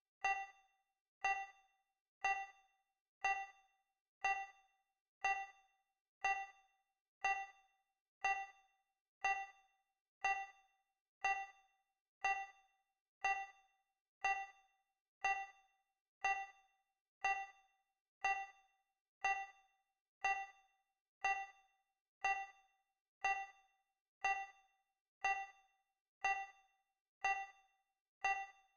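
Digital countdown timer's tick sound effect: a short electronic ding once every second, each one dying away quickly.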